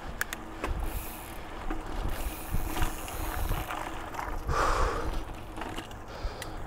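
Mountain bike riding over a dirt trail: tyres rolling on dirt with the bike's chain and frame rattling in scattered clicks, and wind on the helmet camera's microphone. A louder rough burst comes about four and a half seconds in.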